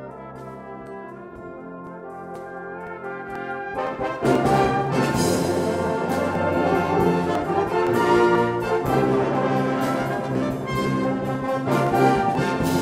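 Brass band playing a sustained passage, quiet at first, then swelling into the full band about four seconds in and staying loud.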